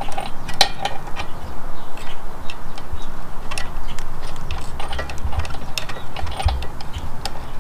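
A new spark plug being screwed in by hand into a lawn mower engine's cylinder head: irregular small metallic clicks and ticks as the fingers turn and the threads catch.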